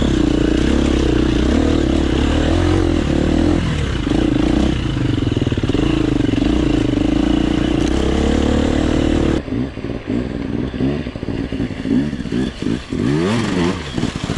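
Enduro motorcycle engine running steadily, heard from the bike itself. About nine seconds in, dirt bike engines rev up and down in quick rises and falls.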